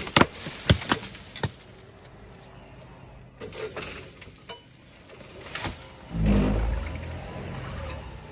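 A few sharp knocks or cracks in the first second and a half, then a heavy, deep thud about six seconds in that dies away over a second or two.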